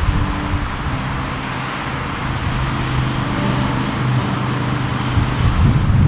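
Road traffic: a motor vehicle's engine running steadily close by over a wash of traffic noise, with a deeper rumble swelling near the end.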